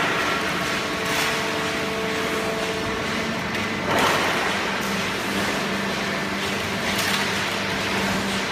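Hydraulic cardboard baler running: a steady machine hum with a faint whine that drops to a lower pitch about three seconds in, and short hissing surges roughly every three seconds.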